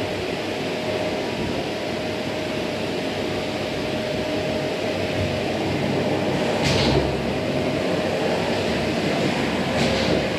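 Vacuum cleaner running steadily, its motor giving a constant hum with a held whine, and a brief sharper hiss about two-thirds of the way through and again near the end.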